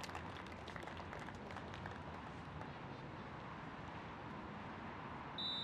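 Steady crowd background at a beach volleyball match, with a few scattered claps at first, then a short, high referee's whistle blast near the end.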